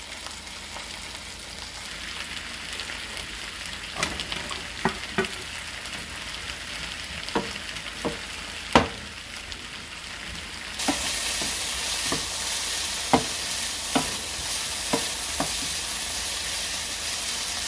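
Chicken frying in oil in a pan, sizzling steadily, with a utensil clicking and scraping against the pan a dozen or so times. About eleven seconds in the sizzle suddenly gets louder and brighter.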